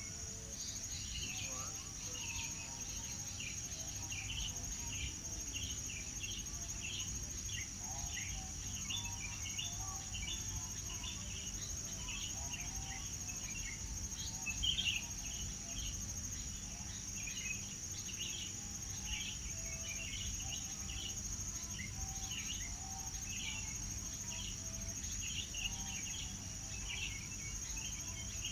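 Birds chirping and calling, with many short repeated chirps over a steady, high-pitched insect drone.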